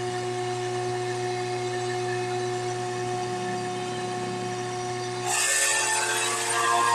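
Electric drill running with a steady hum; about five seconds in the bit bites into wood and a loud cutting noise sets in.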